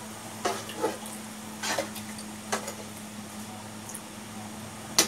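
A metal ladle stirring in an aluminium stockpot of chicken soup, knocking against the pot a few scattered times with the sharpest clink near the end, over a steady low hum.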